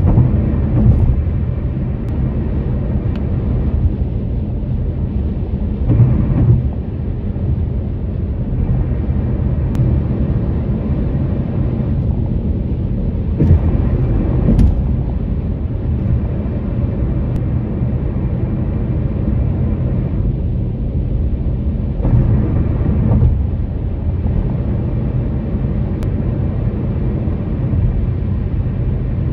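Steady low rumble of a vehicle's tyres rolling over a road bridge deck. Brief bumps come now and then, some in pairs, as the tyres cross the bridge's expansion joints.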